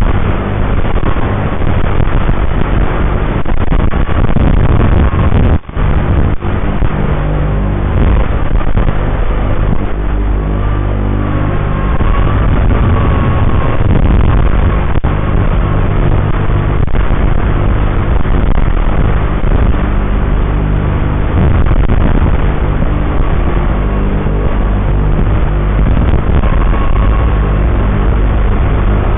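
Small FPV quadcopter's motors buzzing throughout the flight, their pitch shifting up and down with throttle, with a brief cut-out about six seconds in.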